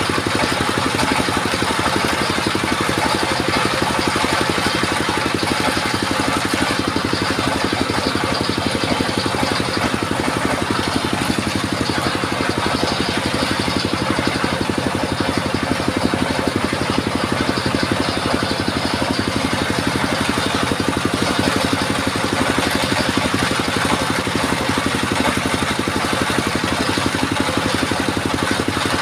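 Engine powering a mobile circular sawmill, running steadily with a rapid, even firing pulse.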